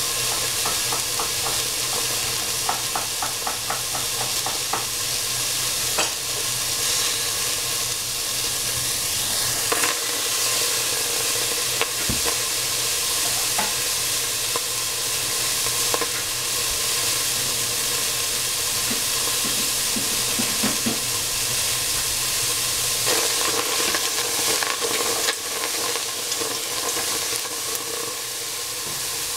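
Food frying and sizzling in hot oil in a pan, stirred with a utensil that makes quick scraping ticks for the first few seconds and an occasional click, over a steady hum.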